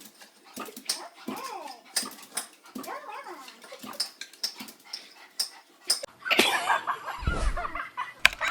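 A dog whining in short cries that rise and fall in pitch, with scattered clicks; about six seconds in the sound turns noisier and louder, with low thuds.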